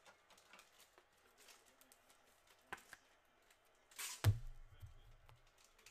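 Soft rustling and clicking of trading cards being handled and sorted, with two sharp clicks near the middle. About four seconds in, a quick swish ends in a loud, heavy thump.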